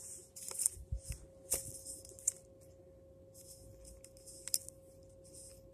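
Handling noise from a phone camera being moved and set down: rustling with a few sharp clicks, most of them in the first half, over a faint steady tone.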